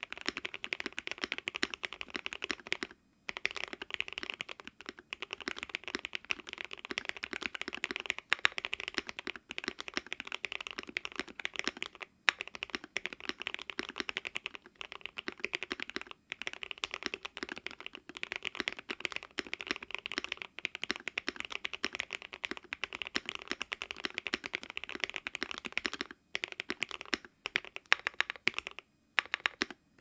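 Fast, continuous typing on a Keychron Q1 mechanical keyboard with lubed Gateron Phantom Red linear switches on a polycarbonate plate, tape-modded and PE-foamed: a dense run of key strikes that stops briefly a few times.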